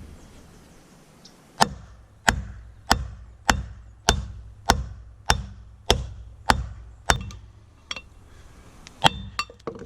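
Hammer blows driving a new side-by-side wheel bearing into its housing, striking the old bearing used as a driver: about ten steady, evenly spaced metal blows a little over half a second apart, then a few lighter taps near the end as the bearing seats.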